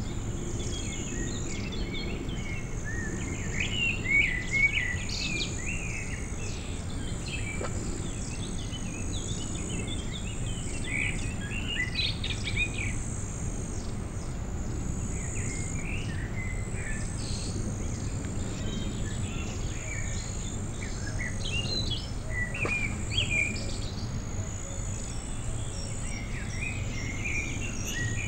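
Outdoor riverside ambience: small birds chirping on and off, loudest about four seconds in, over a high steady insect-like buzz and a steady low rumble.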